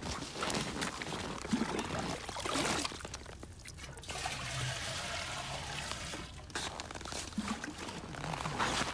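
River water splashing and pouring into aluminium milk cans as it is taken from a hole in the ice, with a steadier pour around the middle.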